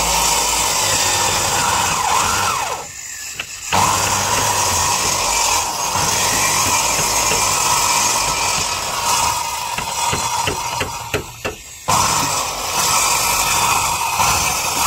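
Handheld electric power saw cutting through wooden boat planking along a marked line. The motor whines steadily under load and drops away briefly twice, about three seconds in and again around eleven seconds, before cutting on.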